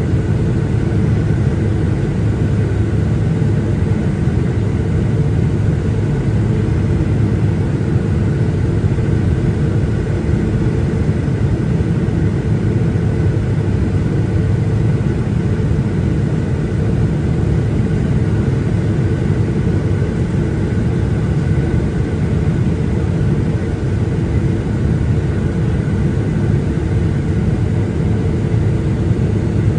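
Steady, loud low engine drone that holds unchanged throughout.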